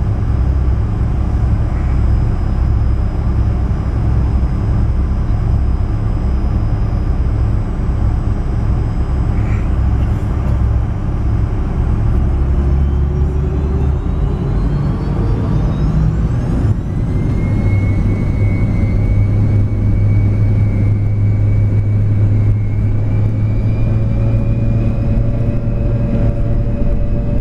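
Jet airliner engines heard from inside the cabin, running steadily at low power, then spooling up with a rising whine about halfway through and settling into a louder, steady drone at takeoff thrust.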